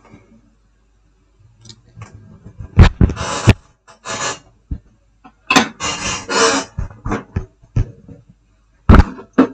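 Workbench handling noises: a few sharp clicks and knocks with several short bursts of scraping or rustling, from tools and small parts being handled during a laptop board repair.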